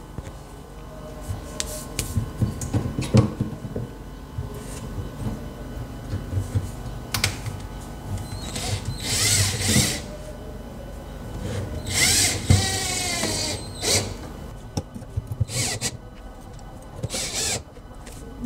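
Cordless drill driving screws into a cabinet door hinge: several short runs of motor whirring that rise and fall in pitch, the longest about nine and twelve seconds in, with clicks and knocks of handling between.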